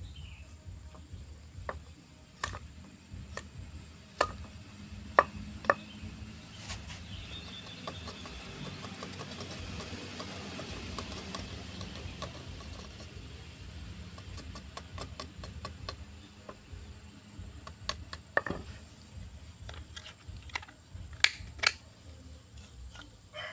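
Machete (parang) blade working a wooden stick: scattered sharp knocks as the blade strikes the wood, the loudest about five seconds in, with a stretch of steady scraping in the middle as it pares the wood down.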